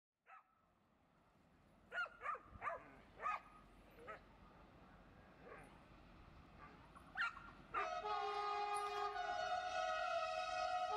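A dog barks a handful of times in the first few seconds and once more just before the horn. About eight seconds in, the horn of CP class 4700 electric locomotive 4718 sounds one long, steady blast as it approaches with a cement train.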